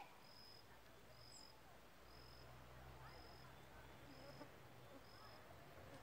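Faint, high-pitched chirp of a small animal in scrub woodland: one flat note repeated evenly about once a second, six times.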